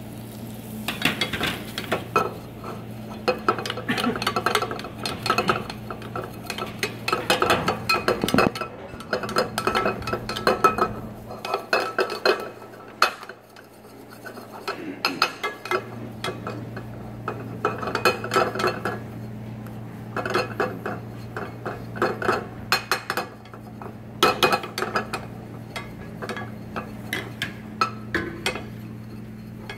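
Spatula stirring and scraping flour and butter against a stainless steel pot while cooking a white roux: bursts of quick clattering knocks and scrapes, easing off briefly partway through, over a steady low hum.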